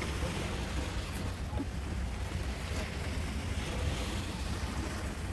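Steady wind noise on the microphone, a low rush, over the wash of surf on the shore.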